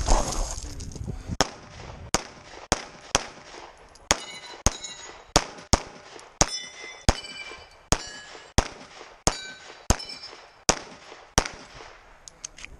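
Pistol shots fired in a run of about seventeen, each about half a second to a second after the last. Many shots are followed by the ringing clang of steel plate targets being hit.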